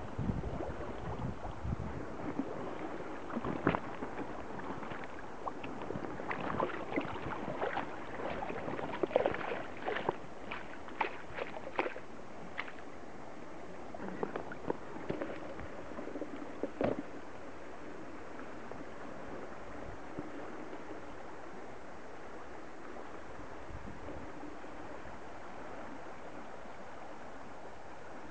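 River water running steadily, with a run of sharp splashes and knocks through the first half that then stop, leaving only the flow.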